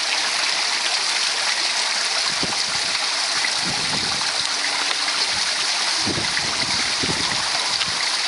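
Water falling down an artificial waterfall: a steady, even hiss of splashing water.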